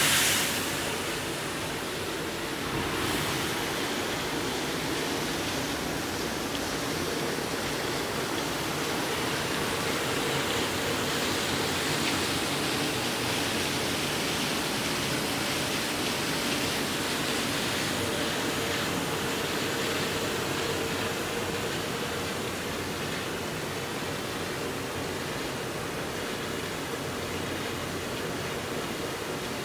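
Hobart UXT 10N commercial dishwasher running a wash cycle: a steady rush of water spraying inside the cabinet over the hum of the wash pump, a little louder from about three seconds in.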